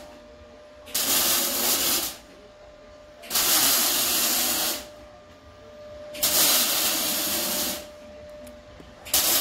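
Loud hissing in regular bursts, each about a second and a half long and coming roughly every three seconds: three full bursts, with a fourth starting near the end. A faint steady tone runs beneath.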